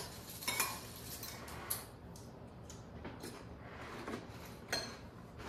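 Metal spoons clinking against ceramic bowls of cereal and milk: a few light clinks spread through a quiet stretch.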